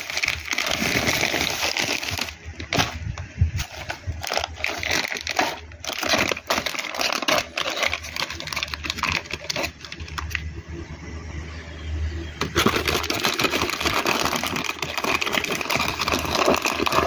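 Plastic packaging crinkling and rustling as audio cables are handled in their bag, a dense run of small crackles that eases for a couple of seconds about two-thirds through.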